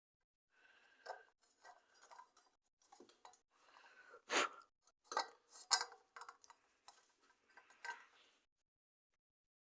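Hands working on a desk lamp: irregular small clicks, taps and rustles of parts being handled, with sharper knocks about four and a half, five and six seconds in.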